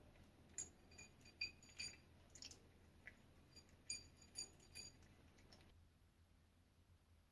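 A cat eating from a small ceramic saucer: faint, irregular clicks and taps as the food and its teeth knock against the dish, some with a brief ringing tone from the saucer. About a dozen clicks, stopping near the end.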